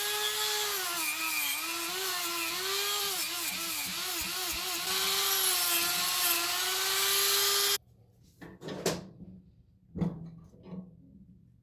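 Small high-speed electric power tool running, its whine dipping in pitch again and again as it is pressed into the work, then cutting off suddenly about eight seconds in. Two sharp clicks follow about a second apart.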